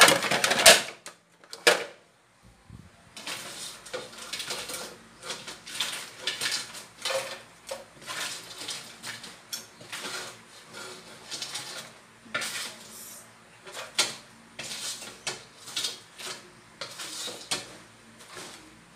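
Cooked crabs being scooped out of a steel wok onto a plate with a plastic ladle: irregular clinks, clatters and scrapes of shells, ladle, wok and plate. A louder flurry comes in the first second, then a short pause before the scooping goes on.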